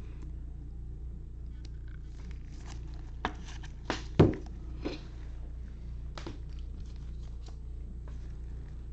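Trading cards and pack wrappers handled on a table: scattered light clicks and rustles, with a sharp knock about four seconds in, over a steady low hum.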